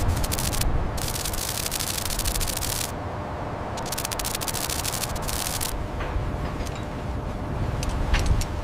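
Dense crackling static of an old-film crackle effect, in three stretches broken by two short gaps, over a steady low rumble. About two-thirds of the way through the crackle stops, leaving the rumble with a few scattered clicks.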